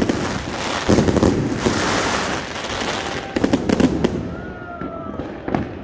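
Jorge JW 4013 Z-shape firework cake firing its finale: dense crackling with bangs, a last cluster of bursts about three and a half seconds in, then thinning to scattered pops as the cake finishes.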